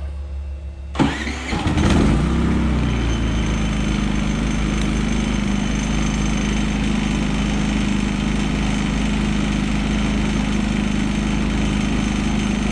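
Predator 3500 inverter generator's single-cylinder engine starting: it fires about a second in, picks up speed and settles into a steady, even run.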